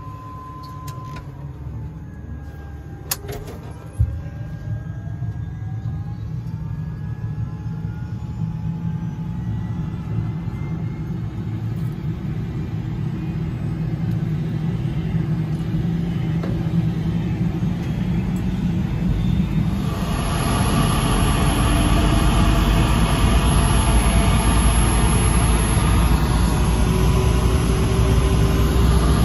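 Tour helicopter's turbine engine starting up: a whine rising in pitch as it spools up, with engine and rotor noise building steadily louder and stepping up to a louder steady run about twenty seconds in. Two sharp clicks come about three and four seconds in.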